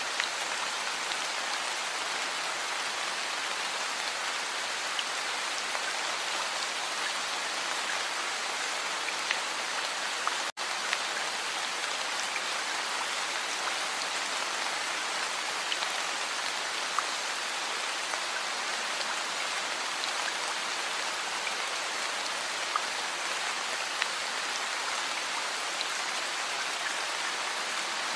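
Heavy rain falling steadily: a dense, even hiss with scattered sharper drop hits. It cuts out for an instant about ten seconds in.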